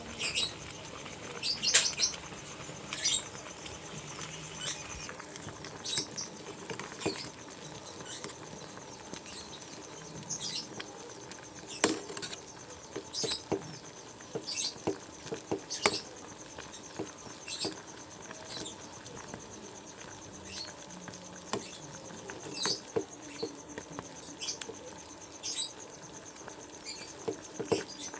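Irregular light clicks and taps of kitchen work, over a faint steady hum.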